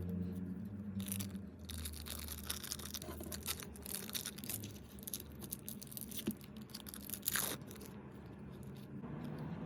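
Packaging being handled and torn open: a dense run of small crackles, tearing and scraping noises, over a low steady hum that fades out early on.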